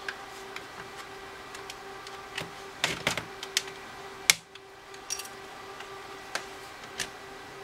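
Sharp plastic clicks and snaps as the back case of a TI-83 Plus graphing calculator is pried apart by hand, its clips letting go. The loudest snap comes about four seconds in, over a faint steady hum.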